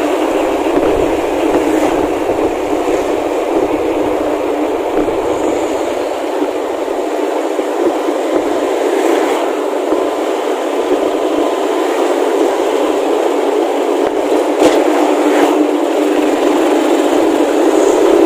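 A Luragung bus's engine and 'ngorok' (snoring) exhaust running steadily, the sound typical of Kuningan buses. It gets a little louder near the end.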